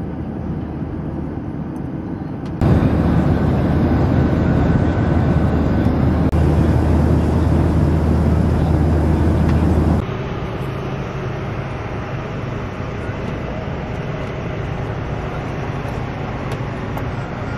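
Steady airliner noise: an even drone and hiss of the engines and cabin air, with a low hum underneath. It jumps louder at about two and a half seconds in and drops back to a lower, even level at about ten seconds.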